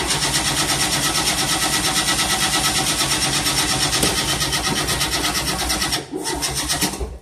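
Starter cranking the engine of a 1988 Tennant 255 Series 2 with a steady, even pulse, without the engine catching: a crank-no-start. It cranks for about six seconds, breaks off briefly, then cranks for about another second and stops.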